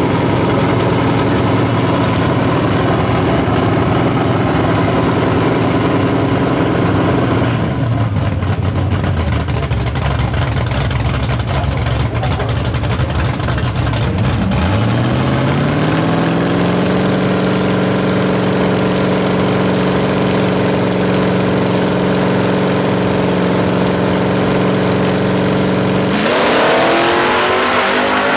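Drag-race engines of a pickup truck and a car at the starting line: idling, then one brought up to a steady held rev about halfway through. Near the end both launch in a loud burst of acceleration, the engine pitch climbing fast as they pull away.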